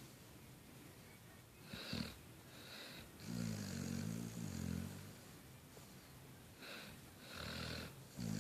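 Snoring from a sleeper: a short snort, then one long, rattling snore about three seconds in, with hissing, wheezy breaths between the snores and the next snore just starting at the end.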